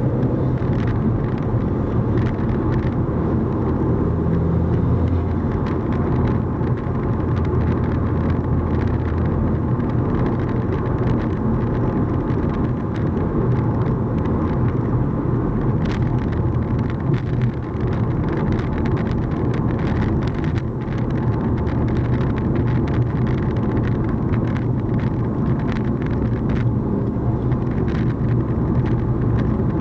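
Car on the move heard from inside the cabin: a steady low drone of engine and road noise, with scattered faint ticks.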